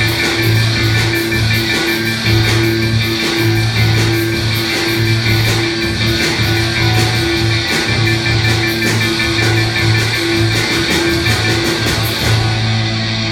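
Rock instrumental with guitar, a repeating bass figure and a dense beat of percussion hits, played by a robot band's mechanical instruments. The percussion stops near the end while a low note carries on.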